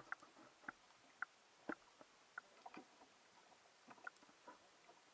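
Faint underwater sound picked up through an action camera's waterproof housing: a quiet hiss with scattered, irregular small clicks and pops.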